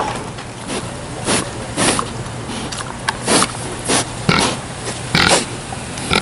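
Boar snuffling with its snout, a series of short, breathy sniffs and snorts, roughly one or two a second.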